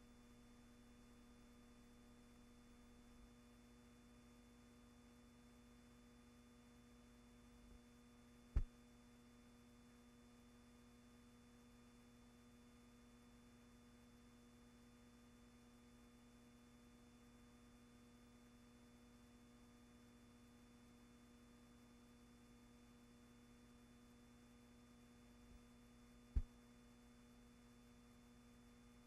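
Near silence: a faint, steady electrical hum over low hiss, broken by two sharp clicks, one about a third of the way in and one near the end.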